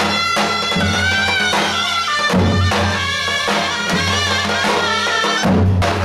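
Turkish davul-zurna folk music: zurnas playing a bending melody over the steady beat of two davul bass drums.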